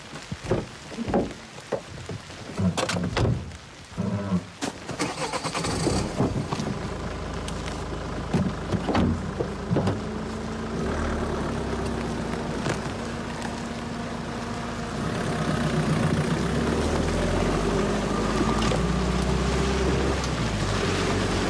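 Several sharp knocks in the first few seconds, then a car engine running steadily, growing louder about two-thirds of the way through.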